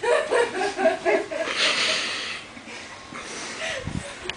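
People laughing breathlessly and breathing hard, with short voiced bursts of laughter at first and a long breathy exhale about a second and a half in.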